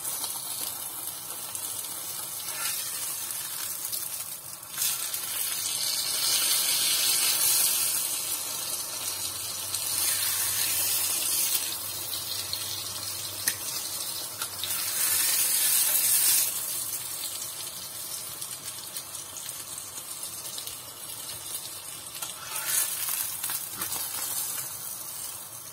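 Raw-mince-stuffed paratha frying in oil on a tawa, with a steady sizzle that swells louder several times.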